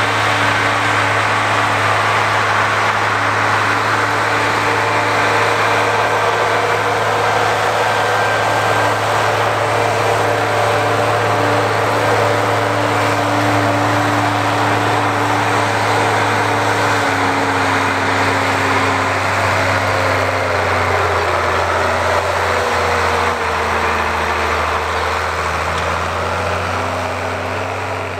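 Ford 9700 tractor's six-cylinder diesel engine running steadily under load while pulling a five-bottom plow. Its pitch steps down a little about two-thirds of the way through, and the sound eases off slightly near the end.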